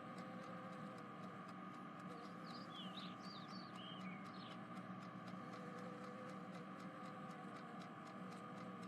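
Faint steady background hum, close to silence, with a handful of faint short high chirps between about two and a half and four and a half seconds in.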